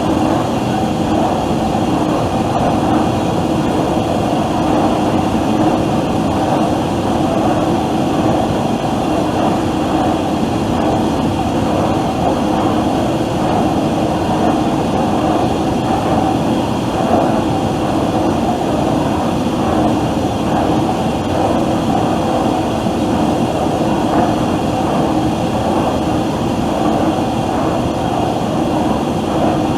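Factory ambience: machinery running in a steady, dense din with a constant hum and no rise or fall.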